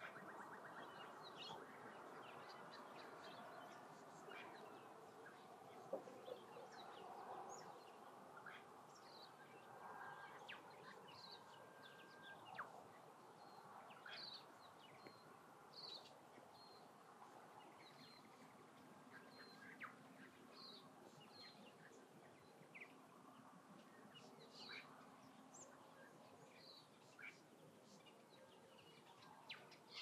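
Faint, scattered bird chirps and short calls over a steady low background hush.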